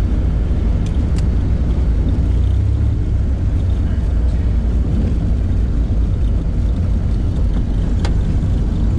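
Light single-engine propeller airplane's piston engine running steadily as the plane rolls along the runway, heard from inside the cockpit as a loud, even, low drone. A few faint clicks come about a second in and near the end.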